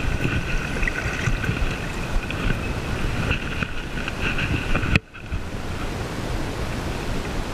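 Steady rushing noise of flowing river water with wind buffeting the microphone. It breaks off sharply about five seconds in and resumes as a plainer hiss.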